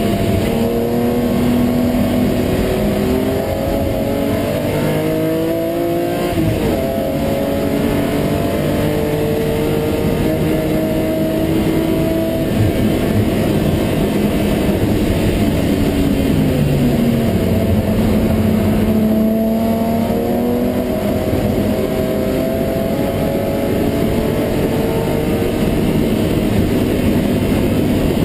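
BMW M3 race car's straight-six engine heard from inside the stripped cabin at racing speed. It revs up through the gears, with a sharp drop in pitch at a gearshift about six seconds in. It climbs again, then falls away as the driver lifts off about two-thirds of the way through, before pulling hard once more. Road and wind noise sit under the engine throughout.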